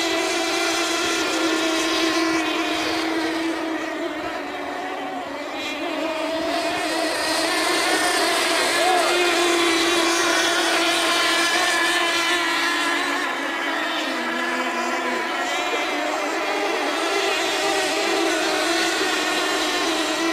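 Several racing model tunnel boats running at full speed, their small high-revving engines whining together. The pitch wavers and shifts as the boats pass and turn.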